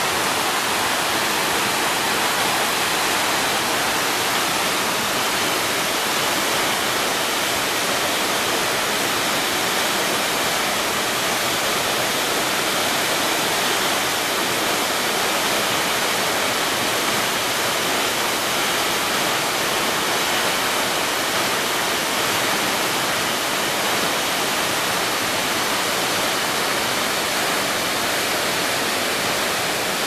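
Tall waterfall plunging into a rocky pool: a steady rush of falling water and spray that never lets up.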